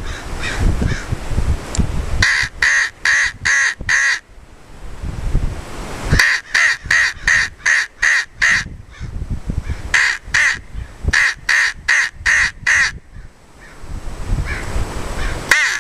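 Lohman crow call, a mouth-blown call with a plastic reed, sounding in three quick runs of short, sharp caws, about three a second, imitating crows. Low wind rumble on the microphone fills the gaps at the start and near the end.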